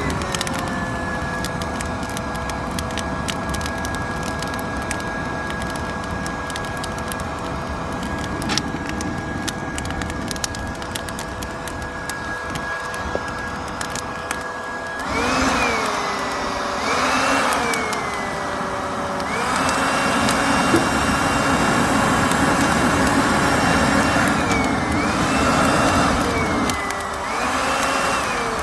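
Wood fire crackling in a brazier, with a high whistle that holds one pitch for about fifteen seconds, then swoops up and down in pitch several times as the crackling grows louder.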